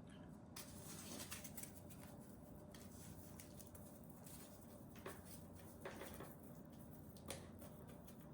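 Near silence with faint rustling and a few light clicks as hands work soft packing-foam strips into the hollow end of an aftermarket rubberized Roomba brush.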